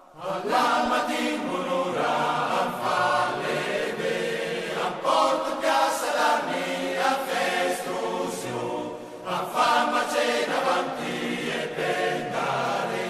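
Choir singing a slow song in long held chords, coming in just after a fade-out.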